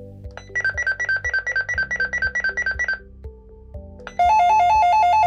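Urmet Miro video handsfree apartment monitor sounding two of its ringtones one after another as button 2 steps through the choices. First comes a rapid trill of high beeps alternating between two pitches for about two and a half seconds. After a short gap, a lower, louder two-tone warble starts.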